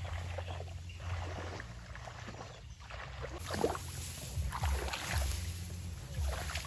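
Tall grass and rice plants rustling and swishing against legs and the camera as someone walks through them, with a steady low rumble underneath; the swishes grow stronger about halfway through.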